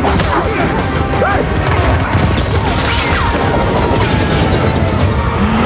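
Loud action-film sound mix: crashes and booms with short screeching squeals, over film score music.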